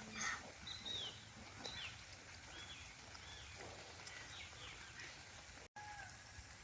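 Quiet outdoor background with a bird's short, high chirps that slide downward in pitch, repeated five or six times.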